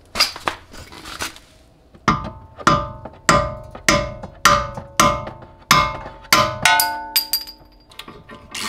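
Hammer blows on metal knocking out the top bolt of a car's rear strut assembly: a few sharp strikes, then a steady run of strikes about every half second from about two seconds in, each ringing briefly.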